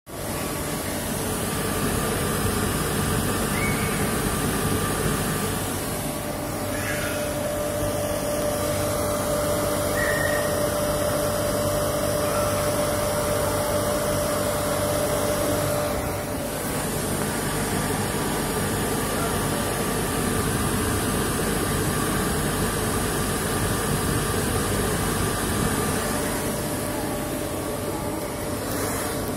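Karnaval cotton candy machine running, its motor spinning the empty spinner head with a steady whirring hum while the head warms up.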